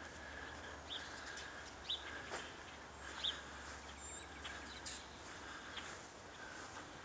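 Birds chirping outdoors: short, high single chirps about a second apart, fewer toward the end, over a faint steady background hum.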